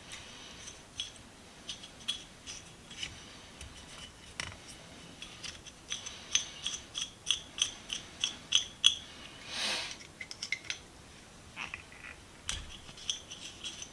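Freshly cleaned, oiled and reassembled 6-inch Diamond Calk & Horseshoe adjustable wrench being worked by hand: quick runs of small metal-on-metal clicks and scrapes from its moving jaw and adjusting screw, thickest in the middle, with a short rasping scrape just after.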